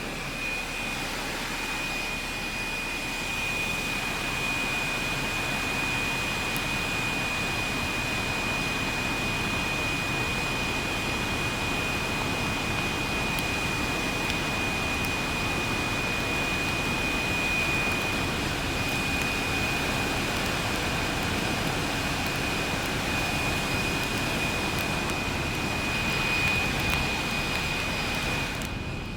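A blower running steadily, a rush of air with a thin, high steady whine on top, forcing air into a smouldering brush pile to heat up its bed of coals.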